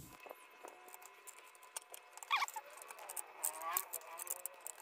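Faint scattered small clicks and taps of hands working plastic wiring connectors and tail trim under a motorcycle seat, with a brief squeak a little before halfway.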